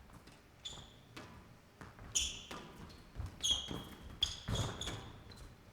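A squash rally: the ball is struck and knocks off the walls and floor several times, with shoes squeaking briefly on the court floor between hits, the loudest cluster about four to five seconds in.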